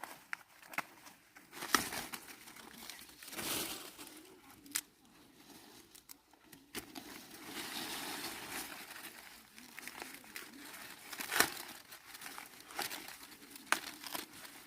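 Dry corn leaves and husks rustling as corn plants are worked through by hand, with sharp irregular snaps as ears of corn are broken off the stalks.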